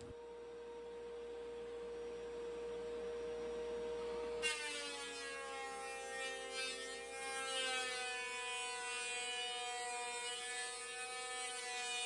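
Benchtop thickness planer running with a steady hum. About four and a half seconds in, a wooden strip feeds into the cutterhead and the sound grows fuller and rougher as the planer cuts, its pitch wavering slightly under the load.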